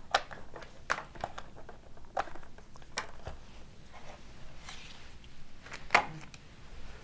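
Scattered clicks and light knocks of hands at work on a laptop keyboard and mouse, with a sharper knock about six seconds in and a brief soft rustle just before it.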